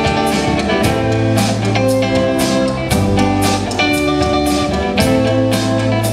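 Live rock band of electric guitar, bass guitar and drum kit playing a song, with the drums keeping a steady beat under sustained guitar notes.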